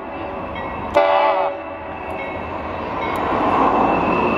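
Union Pacific freight locomotives approaching out of a tunnel, their rumble building steadily over the last few seconds. A brief two-way radio burst with a squelch click comes about a second in.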